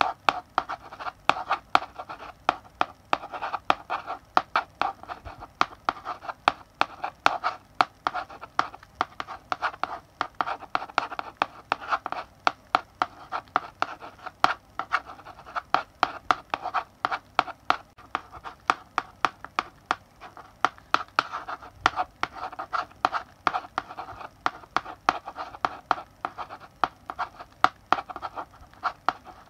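Chalk writing on a blackboard: a quick, irregular run of sharp taps and short scratchy strokes as characters are written, going on without a pause.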